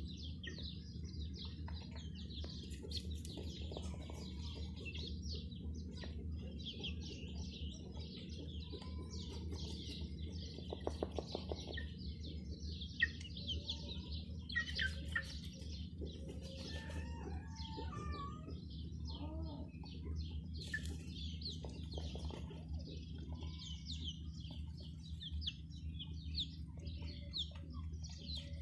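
A brood of baby chicks peeping constantly in rapid high chirps, with a hen clucking now and then, over a steady low hum.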